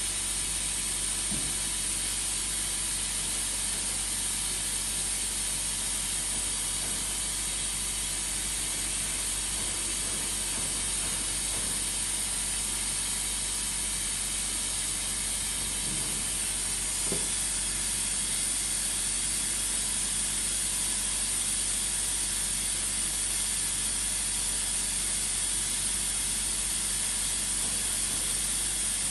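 Steady, unchanging hiss with a high whine and a low hum underneath; a couple of faint knocks about halfway through.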